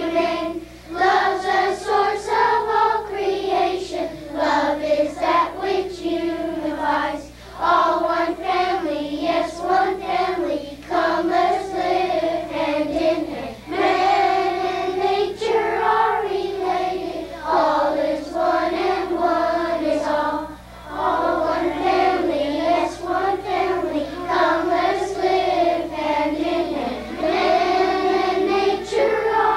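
A choir of children singing one melody line together, in phrases of a few seconds with short breaks between.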